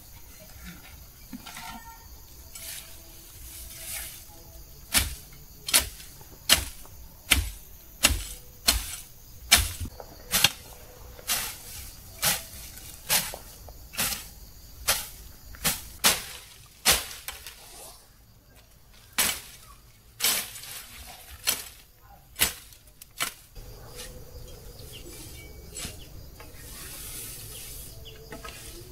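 A long rhythmic run of sharp strikes, something hit over and over about once every 0.8 seconds, beginning about five seconds in and spacing out before it stops a few seconds before the end.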